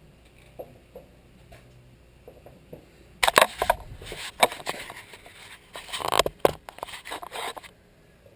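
Scraping, clattering and knocks from the Stihl 046 Magnum chainsaw being handled to get it ready to start, in a loud irregular run beginning about three seconds in. No engine is running.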